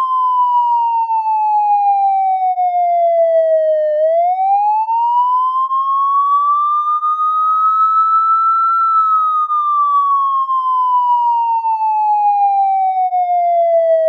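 Police siren sounding a slow wail: one clean tone falls over about four seconds, rises again over the next five, then falls slowly once more.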